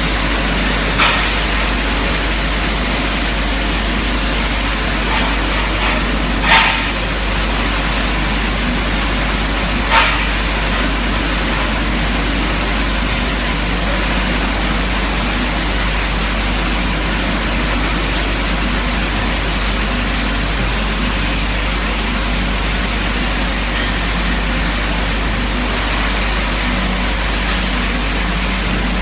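Automatic polishing machine running steadily, its cloth buffing wheel spinning against a metal workpiece, with a constant low hum. Three short sharp knocks come about one, six and ten seconds in, the middle one the loudest.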